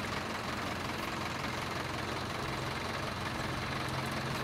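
Heavy farm-machinery engine idling steadily, a low, even hum.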